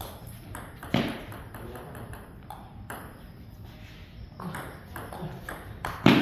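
Table tennis ball knocked back and forth in a rally: quick light clicks of bat strikes and table bounces about every half second, with two louder knocks, about a second in and just before the end, that echo briefly.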